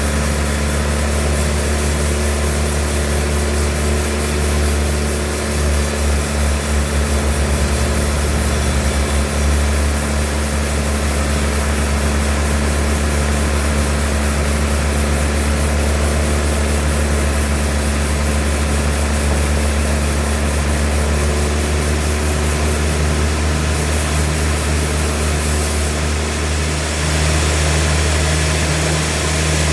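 Sawmill machinery running steadily: a loud, low engine drone with a noisy wash over it.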